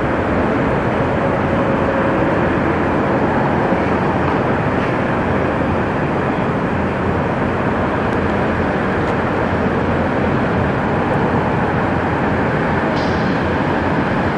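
Kenworth semi tractor's diesel engine running as the truck pulls a loaded tanker trailer through a turn, a steady heavy rumble that barely changes in level.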